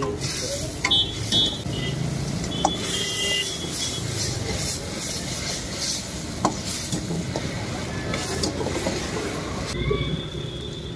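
Steel ladle stirring and scraping Manchurian balls in gravy in an iron wok over a high gas flame, with sizzling and a few sharp clinks of the ladle on the wok. The stirring stops near the end.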